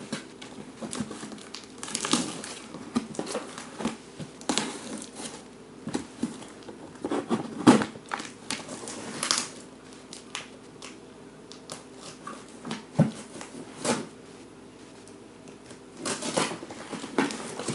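Cardboard mystery box being opened by hand: packing tape tearing and cardboard and plastic packaging crinkling and rustling in irregular bursts, with scattered sharp clicks.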